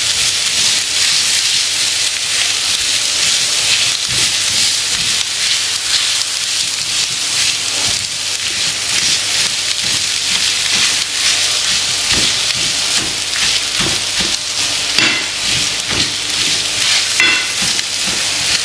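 Potato masala frying in oil in a non-stick pan: a steady sizzle, with the scrape and tap of a metal slotted spatula as the potatoes are stirred and mashed. The taps come more often in the second half.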